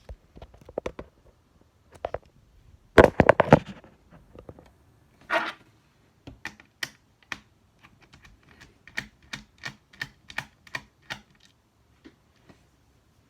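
Small sharp clicks and taps of a screwdriver working screws out of a laptop's plastic screen bezel. There is a quick cluster of louder clicks about three seconds in, then a run of evenly spaced ticks, about two or three a second.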